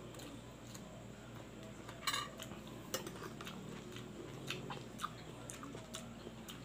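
Metal spoon clinking and scraping against a plate while scooping food. The loudest, ringing clink comes about two seconds in, followed by a few lighter taps.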